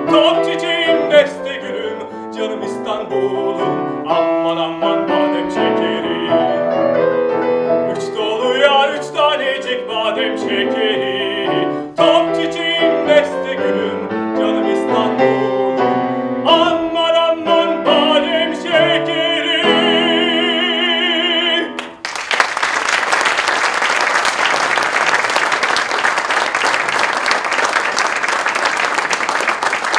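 Operatic tenor singing with grand piano accompaniment, ending on a long held note with vibrato. About 22 seconds in, the music stops and an audience breaks into steady applause.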